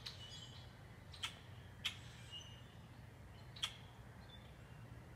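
Four short, sharp chack calls of a common grackle, spread a second or two apart, over faint distant birdsong.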